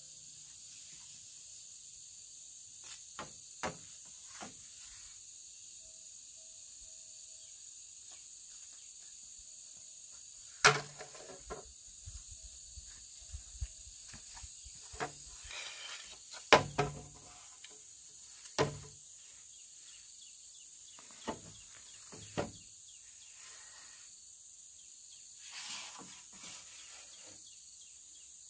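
Insects calling in a steady high-pitched chorus, broken by scattered sharp knocks and clicks from work being done close by. The loudest knocks fall about a third and about halfway through.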